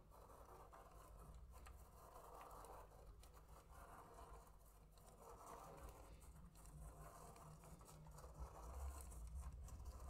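Faint scratching of a fineliner pen tip on paper as a clear plastic Spirograph gear is rolled around inside its toothed ring, swelling and fading about once a second, with small clicks of the plastic teeth.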